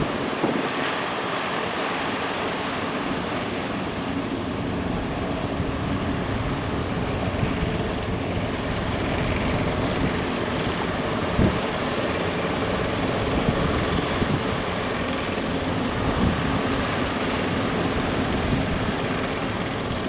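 Strong wind buffeting the microphone over breaking surf, with a fishing boat's engine running underneath. A few sudden low thumps come from gusts hitting the microphone.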